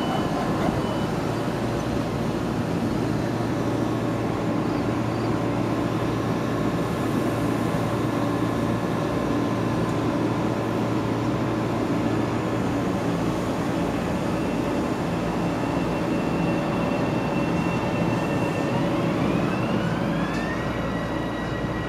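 Metro-North M7A electric multiple unit standing at the platform with a steady hum from its onboard equipment. Near the end, several tones rise together in a climbing whine as its traction motors take power and the train starts to pull away.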